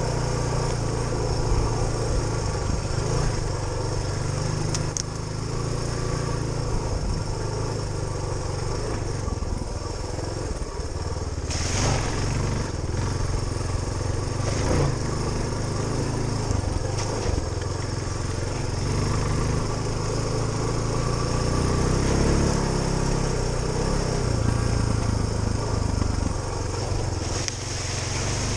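Suzuki DR350SE single-cylinder four-stroke engine running as the trail bike is ridden off-road, its note rising and falling with the throttle.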